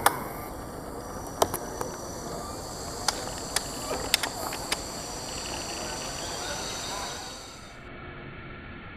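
Outdoor rural ambience with a steady high-pitched insect drone, broken by scattered sharp clicks and snaps through the first five seconds, the first right at the start the loudest. About seven and a half seconds in the high drone cuts out and the background turns quieter.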